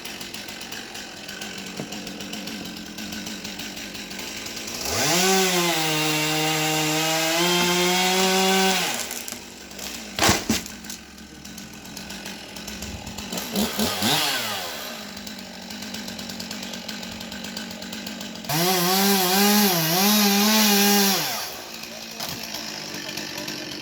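Two-stroke chainsaw idling between two runs at full throttle: about four seconds starting some five seconds in, and about three seconds near the end, with the pitch wavering in the second run. A single sharp knock comes between the two runs.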